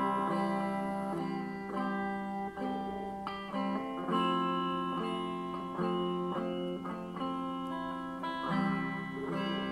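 Guitar playing a blues opening: ringing chords that change about once a second, with no singing.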